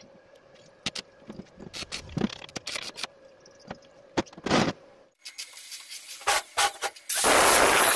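Scattered scrapes and clicks of steel parts being handled with pliers on a steel workbench. About seven seconds in, an angle grinder starts and runs loud and steady, the loudest sound here.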